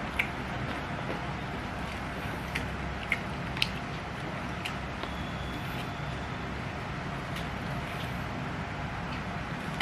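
A person eating nasi padang close to the microphone: scattered sharp mouth clicks and smacks of chewing, a few seconds apart, over a steady low background hum.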